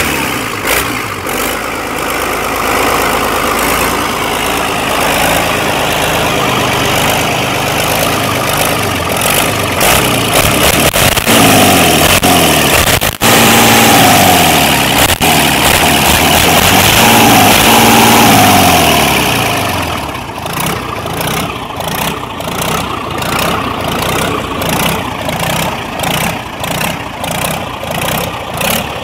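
Freshly overhauled Caterpillar 3306 six-cylinder diesel engine running on a stand just after its first start, with its valve cover off. It runs steadily, is revved up and back down a few times between about 11 and 19 seconds in, then drops back to idle.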